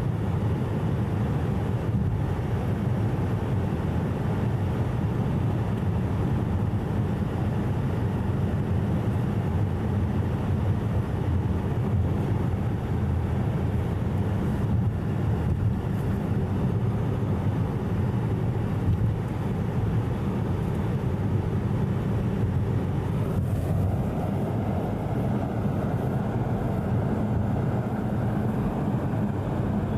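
Steady road noise inside a moving car's cabin: a low drone of engine and tyres, with tyre hiss from wet pavement that grows a little brighter about three-quarters of the way through.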